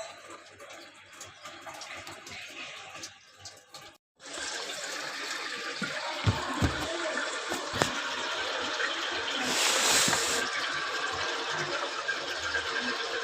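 Water rushing into a Samsung inverter washing machine as it fills, a steady rushing hiss with a few low knocks about six to eight seconds in; the sound drops out briefly about four seconds in and comes back louder.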